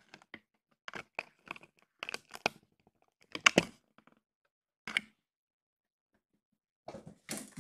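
Kittens playing: irregular knocks, scuffles and rustles, with the loudest a little past three seconds in and another cluster near the end.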